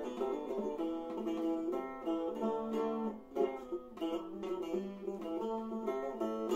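Cümbüş bağlama, a long-necked Turkish lute with a skin-headed metal bowl body, playing a melody of quick plucked notes with no singing. The notes thin out briefly about three seconds in.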